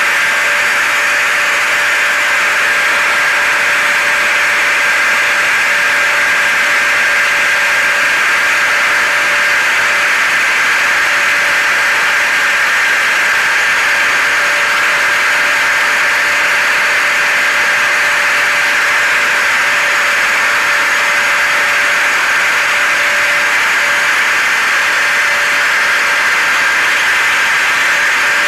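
Steady blended white noise of a hair dryer, a vacuum cleaner and a car running together, an even hiss with a faint steady whine through it.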